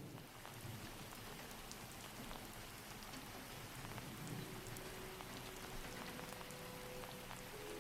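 Steady, faint rain ambience, an even patter of drops. A few soft held music notes come in about halfway through.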